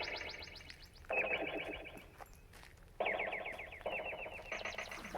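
Electronic sci-fi UFO sound effects played through a speaker: a rapid warbling pulse of about ten beats a second. It is set off anew about five times, each starting abruptly and then fading.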